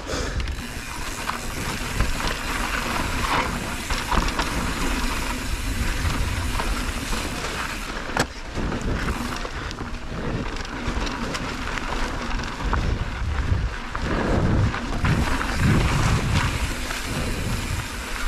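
Mountain bike riding down a dry, rocky dirt trail: tyre noise and rattling from the bike, with sharp clicks as it hits rocks and wind buffeting the camera microphone, the rumbling heaviest later on.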